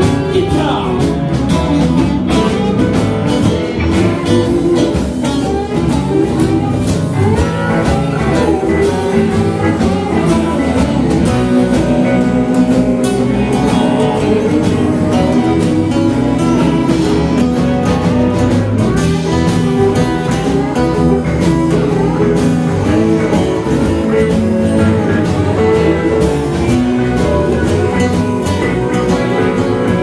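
Live blues band jamming on several electric guitars, with a harmonica played through a microphone, over a steady beat.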